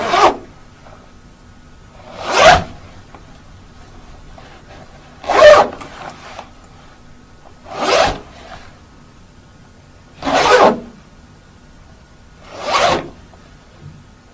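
Jacket zipper being pulled in single quick strokes, six zips each about half a second long, spaced two to three seconds apart.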